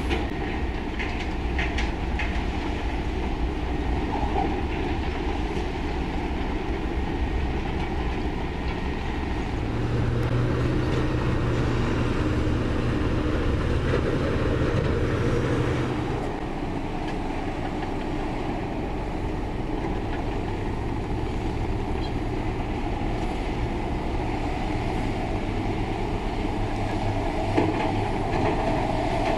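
Heavy diesel earthmoving machinery running steadily, with the clatter of a crawler's steel tracks. The engine note grows louder and deeper for a few seconds near the middle, then eases.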